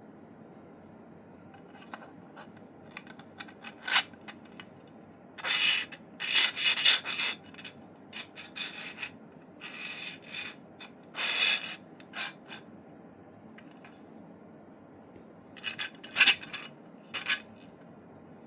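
3D-printed PLA airsoft bolt parts being worked by hand: hard plastic sliding and rubbing against plastic in short scraping strokes, with sharp clicks between them.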